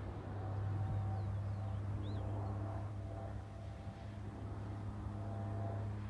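Steady low engine hum from a motor running at constant speed, with a few faint, short bird chirps about one to two seconds in.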